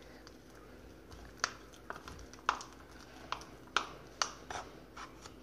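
Slime being worked by hand, giving a series of small, irregular clicks and snaps, about eight of them.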